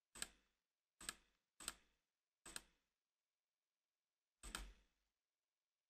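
Faint computer clicks: five short, unevenly spaced clicks, the last about four and a half seconds in.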